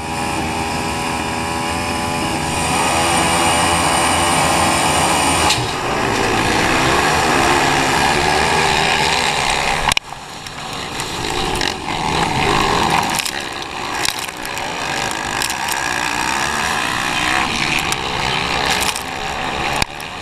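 Motocross bike engines at full race revs, heard from a camera riding on the bike, the pitch climbing and falling as the rider works the throttle and gears. The sound breaks off abruptly about halfway through and picks up again with more engines running close together.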